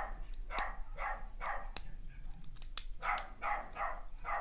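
A dog panting steadily, about two to three breaths a second, with a few sharp clicks from lock picks working a pin-tumbler cylinder.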